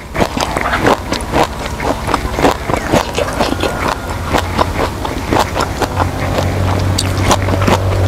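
Close-up wet chewing and crunching of food, with many small sharp clicks and crunches. About four seconds in, a steady low engine hum comes in and grows stronger toward the end.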